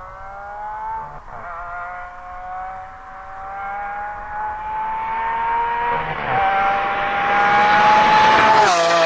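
Lamborghini Aventador LP700-4's V12 engine accelerating through the gears: its pitch climbs steadily and drops back three times at the upshifts, growing louder throughout.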